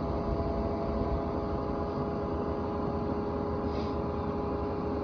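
Concrete pump truck's engine running steadily, with a constant low rumble and an even hum.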